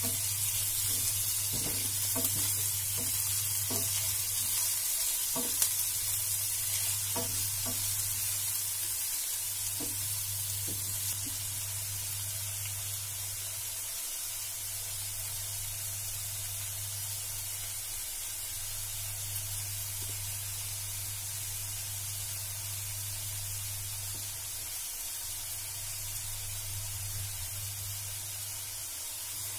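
Sliced onions sizzling in hot oil in a nonstick frying pan. A wooden spatula stirs them with light scrapes and taps for roughly the first ten seconds, then they fry undisturbed. Under the sizzle, a low hum cuts in and out every four or five seconds.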